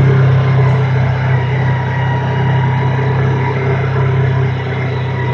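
Kawasaki Teryx S LE side-by-side's 783 cc parallel-twin engine running steadily at an even speed, a strong low hum with no revving.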